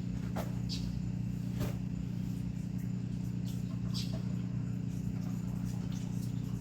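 A steady low machine hum, with a few light clicks and taps from something being handled.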